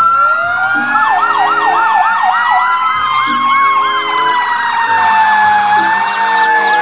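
Fire engine sirens sounding together: a slow wail that rises and falls, overlapped by a fast warbling siren at about four cycles a second.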